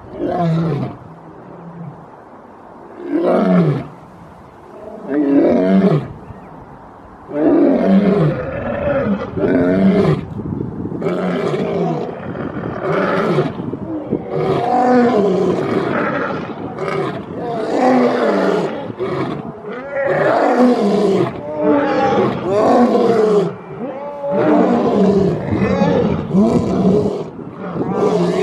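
Lion roaring: a long series of loud calls, each falling in pitch. The first few come a couple of seconds apart; from about seven seconds in they follow one another almost without a break.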